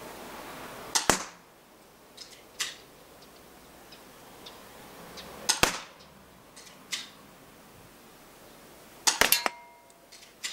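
Spring-powered airsoft pistol (KWC Taurus PT24/7) firing BBs: three sharp snaps, about a second in, midway and near the end, the last one a quick rattling cluster, with quieter single clicks between the shots.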